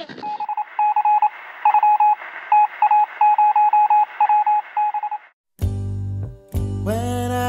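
A run of electronic beeps at one pitch, short and long ones mixed like Morse code, over a faint hiss. The beeps stop after about five seconds, and music with a deep bass and gliding notes comes in.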